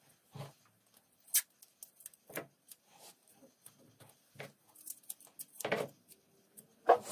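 Masking tape being pulled from the roll, torn off and pressed down over a paper pattern on leather: short, scattered rips, rustles and taps on a wooden workbench, the longest rip and loudest snap near the end.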